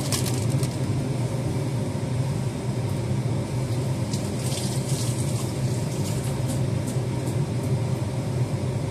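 A steady low hum runs throughout, with a few faint light rustles and ticks about four to five seconds in as rocket leaves are dropped into a salad bowl.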